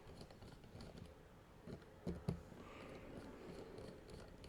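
Faint small clicks and taps from fitting the pocket-clip screws back into a folding knife's handle with a small driver, with a couple of sharper clicks about two seconds in.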